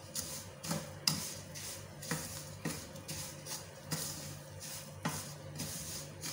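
A spatula stirring vermicelli as it roasts in ghee in a non-stick pan, with light scrapes and taps about twice a second over soft background music.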